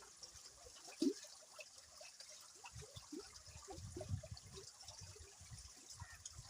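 Flooded river water running and gurgling, a steady hiss of flow with scattered bubbling. There is a sharp splash about a second in, and low sloshing surges later on.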